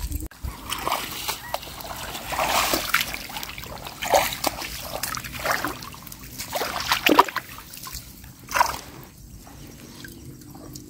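Water splashing, sloshing and trickling in a shallow marsh pool as a folding mesh fish trap is handled: lifted out dripping, then pushed back down into the water. The splashes come at irregular intervals, with a few louder ones along the way.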